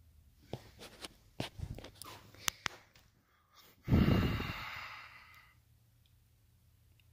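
A person's long, breathy sigh close to the microphone about four seconds in, after a few light clicks and taps.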